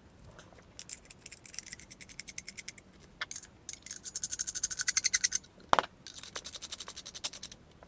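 Aluminium threaded sections of a TrustFire multi-LED flashlight being screwed together, the threads giving three runs of rapid gritty ticking, with one sharper click shortly before the end.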